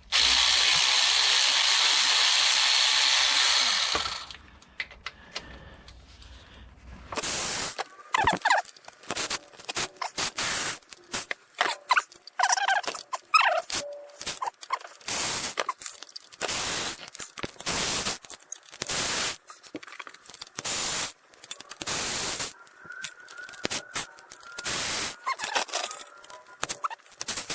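A power tool runs on the Dodge Ram 1500's transmission pan bolts as they are backed out with a 10 mm socket. It makes one steady run of about four seconds, then after a short pause a long string of short bursts, one bolt after another.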